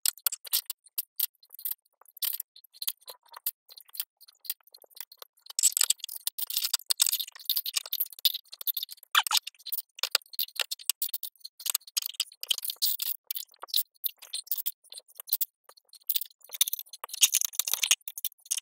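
Small plastic LEGO pieces rattling and clicking as they are picked through in a plastic tray and pressed together: a dense, irregular run of light clicks, busier in several stretches.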